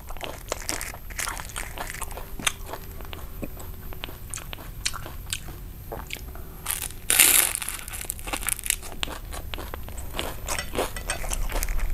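Close-up eating sounds of a fresh rice-paper roll of grilled pork sausage and herbs: wet chewing with many small clicks, and one loud crunch a little after halfway as a bite goes through the fried, crisp rice-paper stick inside the roll.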